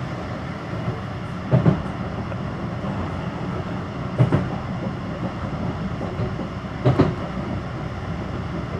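Tram running at top speed, heard from inside the car: a steady rumble of wheels on rail, with three short clunks a few seconds apart.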